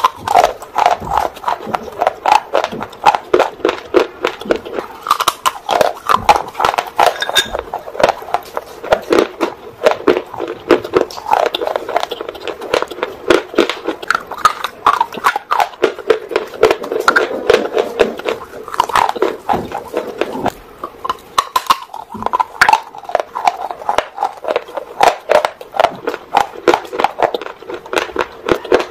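Dry clay roll being bitten and chewed close to the microphone: dense, crisp crunching, many cracks a second, with a couple of short pauses.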